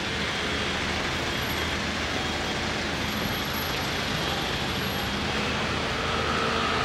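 Steady city street traffic: vehicles running along the road, with a low steady engine hum underneath.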